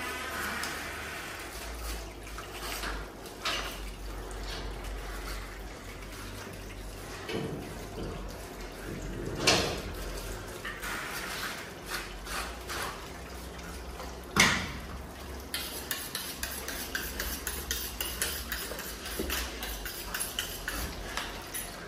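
Butchers' knives scraping and slicing as a calf's hide is skinned off the carcass, with many small metallic clicks, two sharp knocks, and water running steadily over the floor.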